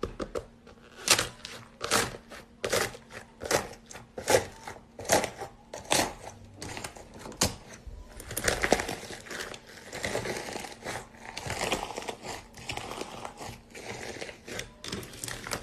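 Fingers pressing into crunchy slime topped with foam beads, each press giving a sharp crackle about once a second. About eight seconds in it turns to denser, continuous crinkly crunching as the flaky top layer breaks up and the slime is squeezed.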